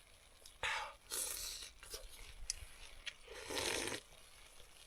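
A person eating close to the microphone: three short noisy bursts of eating sounds.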